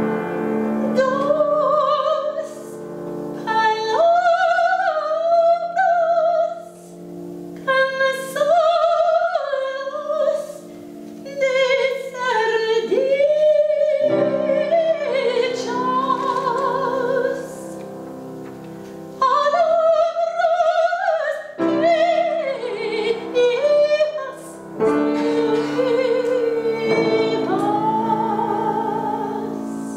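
Soprano singing a classical art song with wide vibrato, in phrases of a few seconds, over sustained chords on a grand piano.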